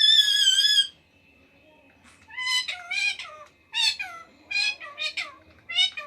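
Indian ringneck parakeet vocalising: one long, wavering high call, then after a pause a quick run of short, speech-like syllables of mimicked talk.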